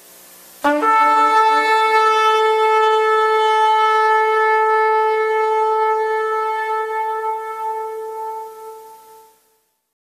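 One long blast of a horn-like wind instrument. It starts suddenly about a second in on a brief lower pitch, settles on a single steady note, and fades out near the end.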